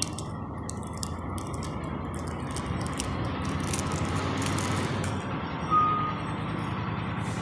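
Sun-dried masoor dal tisauri (lentil wadis) crumbled between the fingers, giving a dry crackling crunch over a steady background rumble. A short beep sounds about six seconds in.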